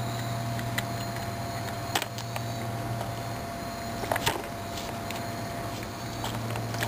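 A raccoon crunching hard acorns and rummaging through them in a plastic tub: a few sharp cracks and clicks, the loudest about two seconds and about four seconds in, over a steady low hum.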